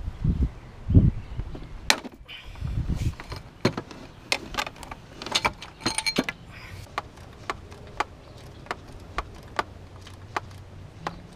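Ratchet wrench clicking on a long extension, loosening a starter bolt: short runs of clicks, then single clicks about twice a second. A few dull knocks in the first second.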